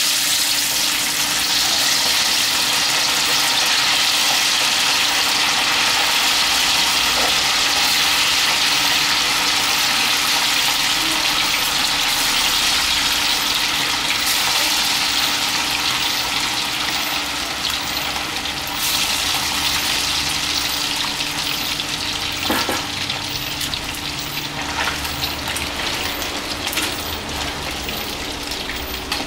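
Whole chicken wings deep-frying in a wok of hot oil: a loud, steady sizzle that begins suddenly as the pieces go in and eases a little toward the end. Near the end come a few light knocks as tongs move the pieces.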